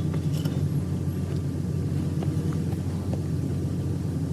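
An engine running steadily at idle, a low even drone, with a few faint clicks over it.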